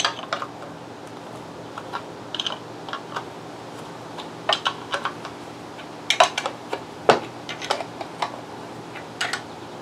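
Irregular metal clicks and clinks of a wrench working the bolts on a pool booster pump's motor bracket as they are loosened, over a faint steady hum.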